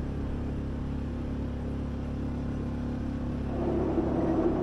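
A steady engine drone with a low hum beneath it, growing louder about three and a half seconds in.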